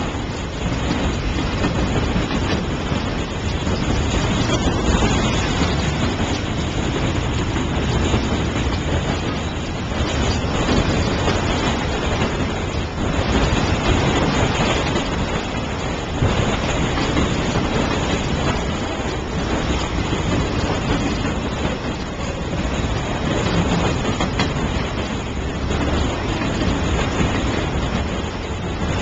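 CSX autorack freight train passing at close range: the steady noise of its steel wheels rolling on the rails as car after car goes by.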